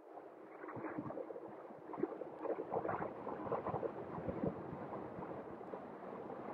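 Wind buffeting and rustling on the microphone of a handheld phone during a ride, an irregular crackling rumble with scattered bumps that grows busier about two seconds in.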